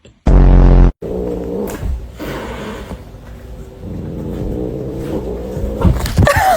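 A cat growling low and steadily for several seconds, with a short yowl near the end. It follows a brief, very loud flat buzz right at the start.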